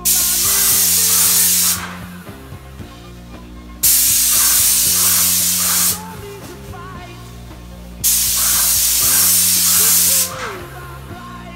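Airless paint spray gun on a Graco 390 sprayer hissing in three bursts of about two seconds each as the trigger is pulled and released, atomising wall paint at high pressure. Background music plays underneath.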